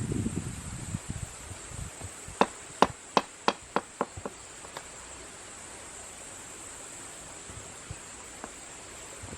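A quick run of about seven sharp knocks, some two seconds in, trailing off with a few fainter ones, over a steady high insect drone.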